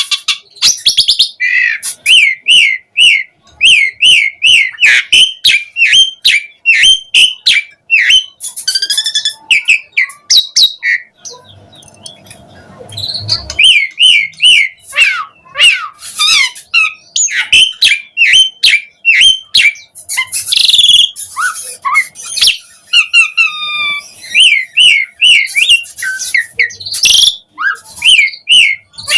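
Pied starling (jalak suren) singing energetically: runs of short, repeated whistled and chattering notes, about two to three a second, mixed with varied sweeping calls. A lower, rasping noise breaks in briefly about twelve seconds in.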